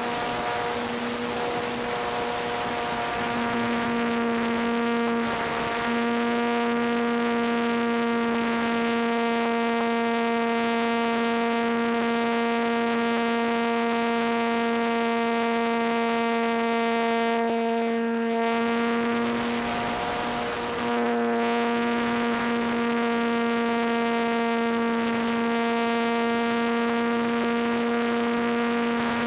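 Electric motor and propeller of a ParkZone T-28 Trojan RC plane, heard from its onboard camera in flight: a steady whine with a rush of air. It eases off briefly about two-thirds of the way through, then picks back up.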